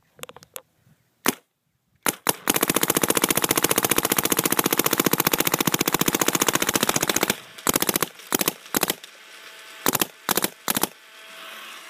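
Dye DM10 electronic paintball marker firing in ramp mode, set to 15 balls per second: a few single shots, then a rapid string of shots lasting about five seconds, then a few more scattered shots.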